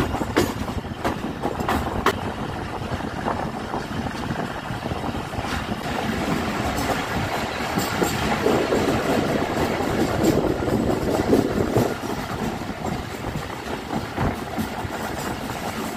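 Passenger train coach running along the track, heard from its open doorway: a steady rumble of wheels on rail with irregular sharp clicks over rail joints. It grows louder for a few seconds about halfway through as the coach passes under a concrete road bridge.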